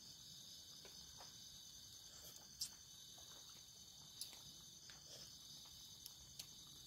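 Steady high-pitched chorus of night insects, with a few light clicks, the sharpest about two and a half seconds in.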